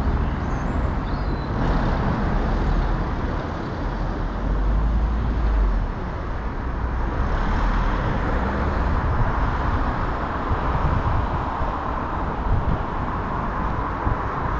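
Road traffic passing close by on a busy street: a steady hiss and rumble of tyres and engines that swells a few times as vehicles go past.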